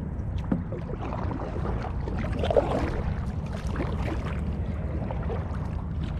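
Steady low wind rumble on the microphone, with faint scattered clicks and rustles from movement.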